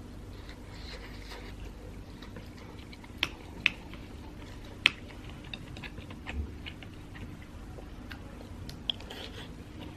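A person chewing a mouthful of fried sticky rice close to the microphone, with a few sharp clicks, the loudest about three and five seconds in.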